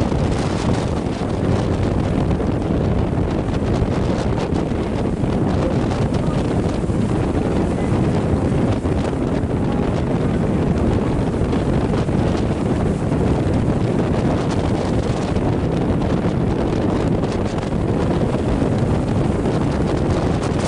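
Strong wind buffeting the microphone: a steady, loud rumble with no clear engine note in it.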